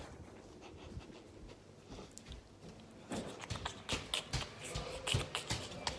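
Footsteps walking, as a run of uneven knocks and taps starting about three seconds in, after a quiet stretch of room tone.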